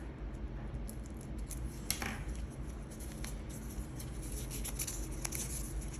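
Light clicks and faint rubbing from hands handling small objects, the camera and a glue bottle, over a low steady hum. There is one sharper click about two seconds in.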